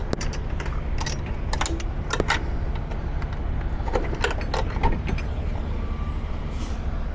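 Steady low engine rumble from an idling truck, with scattered metallic clicks and clanks in the first couple of seconds and again about four to five seconds in.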